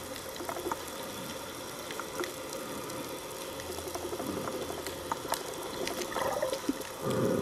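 Water noise picked up by a camera held underwater: a steady muffled hiss with scattered faint clicks, and a muffled rush of water near the end.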